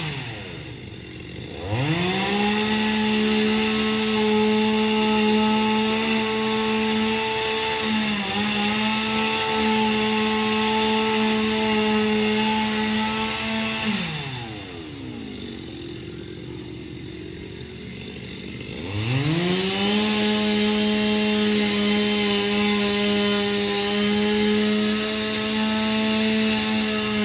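Small two-stroke chainsaw at full throttle, cutting into a tree trunk. It drops to idle right at the start and revs back up about two seconds in, then drops to idle again about halfway and holds there for several seconds before revving back up.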